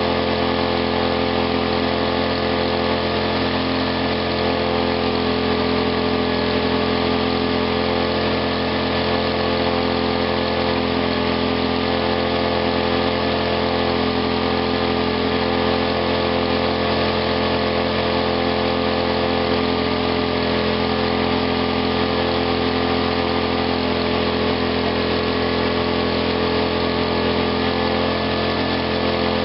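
Small gasoline engine running on a GEET fuel-processor reactor fed through an RC carburetor, holding a steady speed with no revving.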